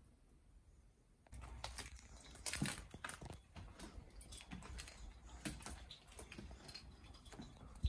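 Footsteps crunching and scuffing over debris on the floor: an irregular run of clicks and crackles with a low rumble under them. They start about a second in, after a near-quiet moment.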